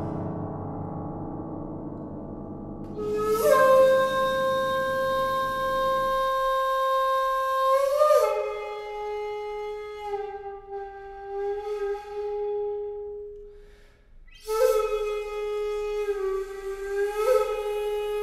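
Shakuhachi playing slow, long held notes. One note is held for about five seconds and slides down to a lower note held for several more, then after a short pause a new note begins and bends partway through. At the start, a low ringing tone fades out over the first few seconds.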